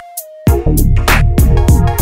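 Electronic background music with a drum-machine beat and deep bass hits. It cuts out for about half a second at the start, then the beat comes back in.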